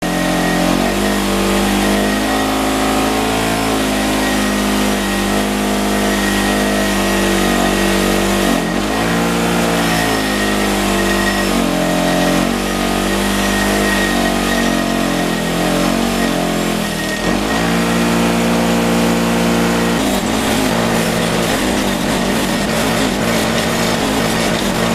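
Bench-mounted wire wheel running while a rusty steel motorcycle kickstand is pressed against it to strip the rust; the motor's hum dips in pitch now and then as the part loads the wheel. In the last few seconds the sound turns choppy, played back fast-forwarded.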